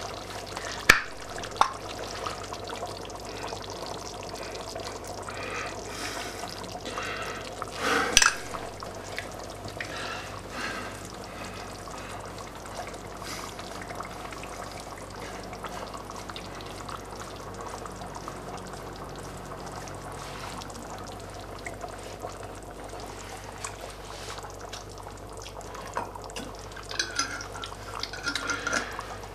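Steak sauce being poured and shaken out of its bottle into a pot of soup, pouring and dripping, with scattered small clicks of the bottle and a louder brief knock about 8 seconds in.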